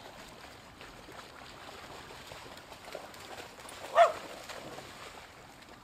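A dog barks once, sharply, about four seconds in, over faint outdoor background.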